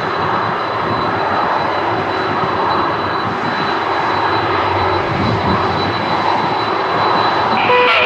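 Twin jet engines of an Airbus A330 running at taxi power as it rolls past close by: a steady loud rush with a thin, high whine over it. A second steady tone comes in near the end.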